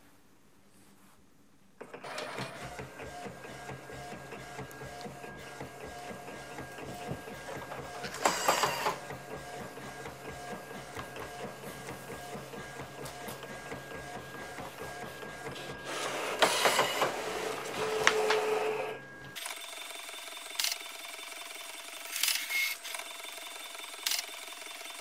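Primera Impressa IP60 inkjet photo printer printing a 6x8 inch photo off the roll: steady mechanical running with a low hum, starting about two seconds in, with louder passages about a third of the way through and again near the end. Shortly before the end it drops to a quieter hum with a few clicks.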